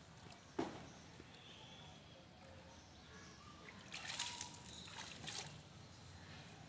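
Water splashing and sloshing as a macaque moves about in a shallow muddy pond, with louder splashes about four seconds in and again a second later. A single sharp knock about half a second in.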